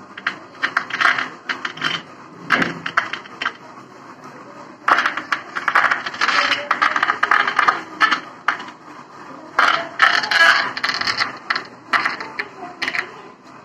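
Bursts of rapid clicking and scraping from multimeter test probes being handled and pressed against an amplifier's circuit board and metal chassis, in three clusters.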